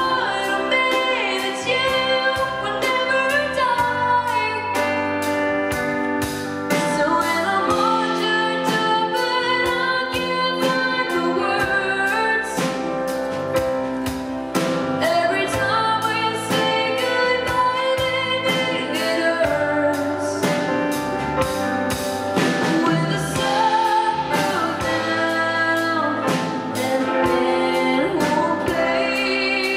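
A young female singer singing a song live into a microphone, backed by a band with a drum kit keeping a steady beat.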